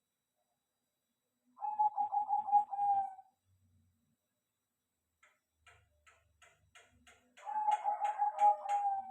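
A caged dove cooing: two trilled calls of about a second and a half each, a few seconds apart. Faint ticking comes between them.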